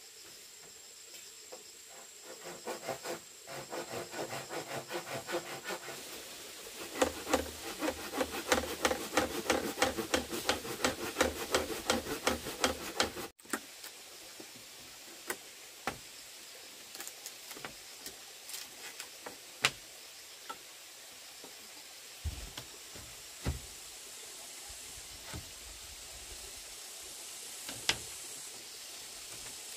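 A hand tool working bamboo in quick, even rasping strokes, about four a second, that stop abruptly about 13 seconds in. After that come single sharp knocks of wood, a few seconds apart. A steady high insect drone sits under the strokes.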